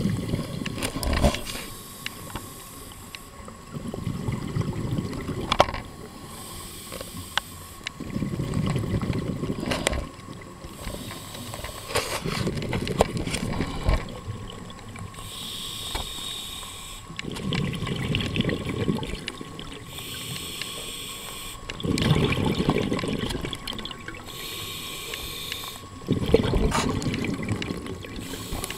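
Scuba diver breathing through a regulator underwater: bursts of exhaled bubbles about every four seconds, with a fainter hiss of inhalation between several of them.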